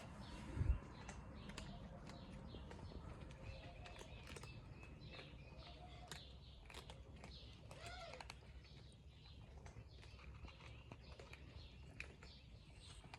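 Several cats chewing and crunching food, heard as faint, irregular small clicks, with a low thump just under a second in and a short call about eight seconds in.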